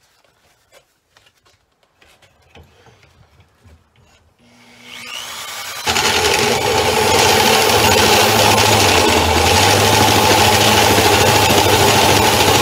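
A few faint clicks of handling, then about five seconds in a corded drill spins up. From about six seconds it runs loud and steady, driving a hole saw in a pipe notcher that cuts a round notch into a roll-cage tube.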